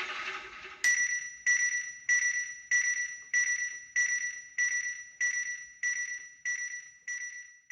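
A high chime-like ding struck about every 0.6 s, each ringing out before the next, slowly growing fainter; it begins about a second in.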